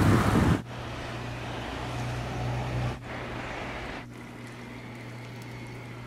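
Wind buffeting the microphone: a loud rumbling gust for the first half-second, then a steadier windy hiss over a constant low hum that drops in level at about three and four seconds in.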